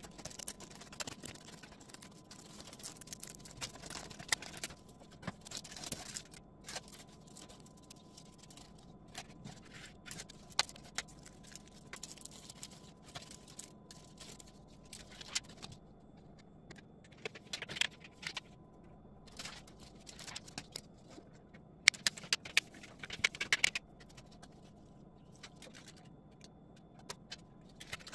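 Scattered handling noises: light clicks, scrapes and crinkling from stick-on backsplash panels being fitted behind a stove, with a cluster of sharp clicks a little over twenty seconds in.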